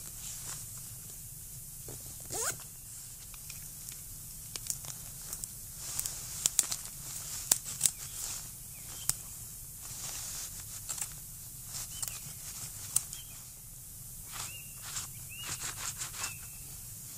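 Rustling with many sharp snaps and tearing as someone handles a backpack and pulls at twigs and undergrowth on a mossy forest floor. A few short high chirps come in the second half.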